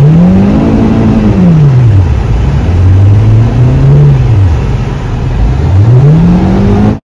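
Car engine revving up and dropping back several times while the car is stuck on a snowy hill, its tyres spinning for traction. The engine climbs to a peak about a second in, revs again around four seconds, and rises once more near the end before the sound cuts off suddenly.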